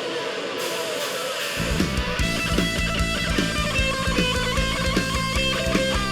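Live rock band playing an instrumental passage led by electric guitar; about a second and a half in, the drums and bass come in with a steady beat.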